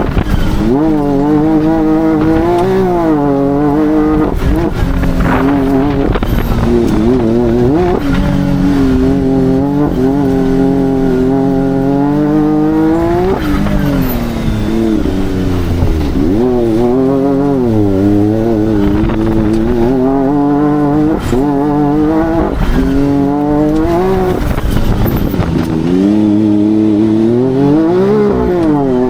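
Can-Am Maverick R X RS off-road side-by-side's 999 cc turbocharged three-cylinder engine driven hard, its pitch rising and falling again and again as it accelerates, lifts off and shifts through the dual-clutch gearbox.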